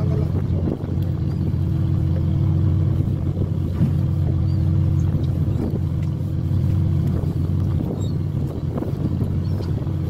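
Fishing boat's engine running with a steady low drone, with a few light knocks over it.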